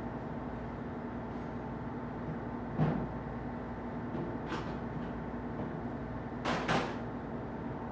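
A few short clunks and scrapes of hands working on the engine: one about three seconds in, another a second and a half later, and two close together near the end, over a steady background hum.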